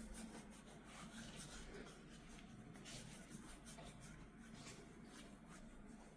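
Faint rubbing and scratching of fingers on hair and skin during a head and face massage, a run of short scratchy strokes.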